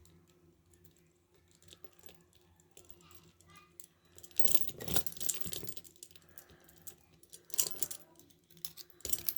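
Small metal clicks and rattles of a lock being picked with a pick and tension tool, with louder bursts of clinking from the lock and chain about halfway through, near the end of the second half and again at the close.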